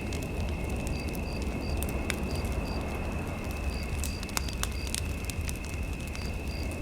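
Fireplace fire crackling over a steady low rumble, with scattered sharp pops. A steady high electronic tone and groups of short soft beeps run underneath.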